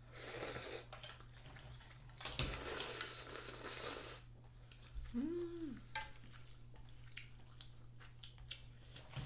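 Slurping of thick Neoguri ramyun noodles and spicy broth from a metal spoon: a short slurp at the start, then a longer one of about two seconds. About five seconds in comes a brief voice sound that rises and falls in pitch, followed by light clicks of chopsticks and spoon.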